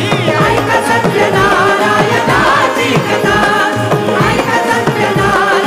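Marathi devotional folk song accompaniment: hand drums keep a steady beat under a wavering melodic line, in an instrumental passage between sung verses.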